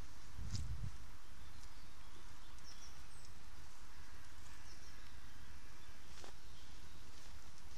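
Outdoor background hiss with scattered short, high bird chirps, a brief low rumble about half a second in, and a sharp click a little after six seconds.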